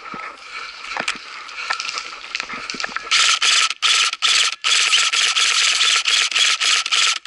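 Crunching steps and snapping twigs on a dry pine-needle forest floor. About three seconds in, an electric airsoft rifle, an MK18 replica, fires loud full-auto bursts, a fast even rattle broken by a few short pauses.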